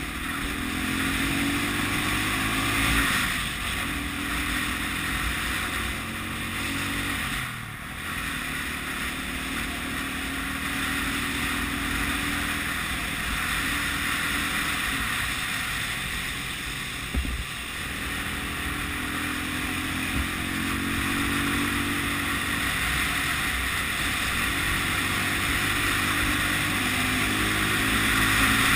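Honda CB250RS single-cylinder four-stroke engine on the move. Its revs climb and fall again and again as it pulls out of bends and shifts gear, with brief dips about a quarter and about three fifths of the way through. A steady rush of wind runs over the microphone.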